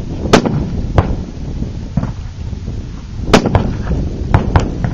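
A string of about eight gunshots, irregularly spaced, from a competitor shooting a 3-gun stage. The loudest shots come about a third of a second in and just over three seconds in.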